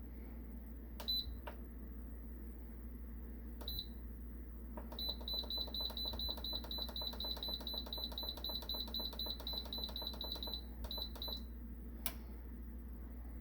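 Instant Pot electric pressure cooker's control panel beeping as its buttons are pressed: two single short high beeps, then a fast run of about five beeps a second for some six seconds as the cooking time is stepped up, and two more beeps near the end.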